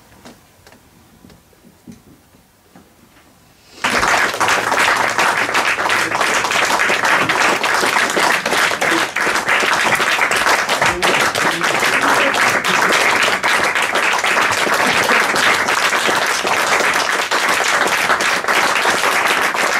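Audience applause: after a few quiet seconds with a few faint knocks, clapping breaks out suddenly about four seconds in and carries on, dense and steady.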